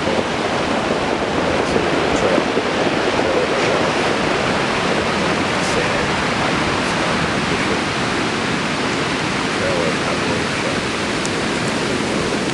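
Ocean surf washing up a cobble beach: a steady, unbroken wash of noise from the breaking waves.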